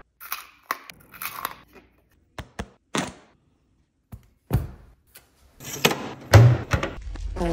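A quick run of short clicks, taps and crunches from candies and metal freeze-dryer trays being handled, thicker near the end with one heavier knock.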